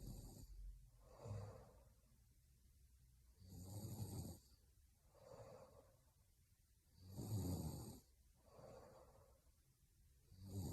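A woman snoring faintly in her sleep: a rumbling snore on each in-breath, about every three and a half seconds, each followed by a softer out-breath.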